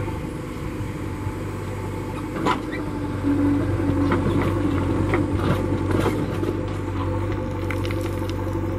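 JCB 3DX backhoe loader's diesel engine running steadily under hydraulic load as the backhoe bucket digs into a soil pile. A few sharp knocks and scrapes of the bucket and clods, the clearest about two and a half seconds in.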